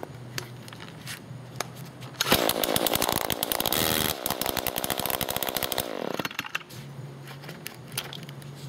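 Echo SRM-225 string trimmer's small two-stroke engine idling, revved up hard for about three and a half seconds starting about two seconds in, then dropping back to idle.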